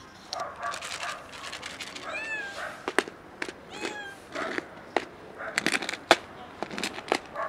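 Stray cats meowing, several short meows that bend up and down in pitch, with several sharp clicks in between; the loudest click comes about six seconds in.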